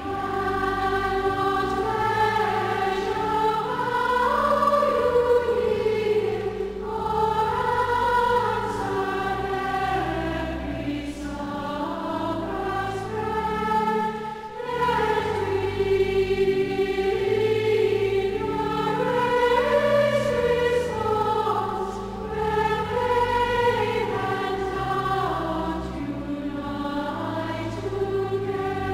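Church congregation singing a hymn in harmony, with sustained low accompanying notes beneath the voices.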